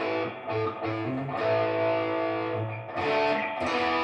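Electric guitar playing a short lead lick: a few quick single notes, a note held for about a second and a half in the middle, then a few more notes.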